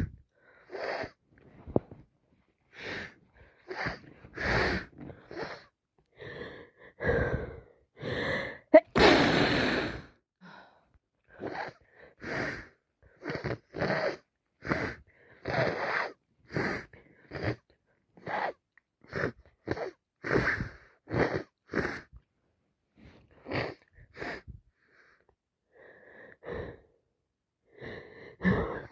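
A woman with a heavy cold sneezing again and again, with sharp breaths between, about one burst a second. There is one longer, louder blast about nine seconds in.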